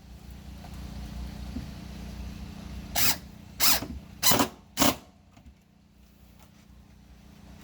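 Cordless drill driving a screw through a square bit, run in four short bursts about half a second apart, fastening a cabinet insert.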